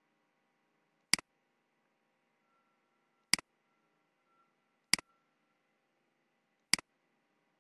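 Four single computer-mouse clicks, short and sharp, spaced unevenly about two seconds apart, with a faint steady hum between them.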